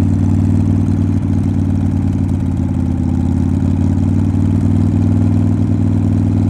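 Vehicle engine running steadily at a constant pitch, without revving, heard from inside a moving car.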